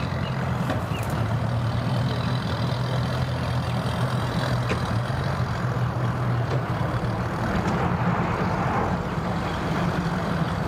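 Bass boat outboard motor running at low speed as the boat maneuvers, a steady engine hum whose pitch steps up about seven seconds in.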